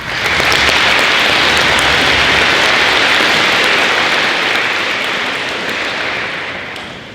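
Audience applauding, starting at once, holding steady and dying away near the end.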